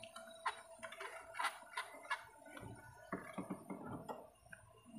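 Faint, scattered clicks and taps of hands handling plastic wiring connectors and ignition coils on a stopped engine.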